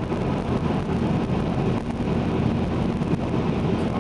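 Steady engine and road noise heard from inside a moving Vauxhall Corsa with a 1.2-litre engine, a low, even rumble while cruising.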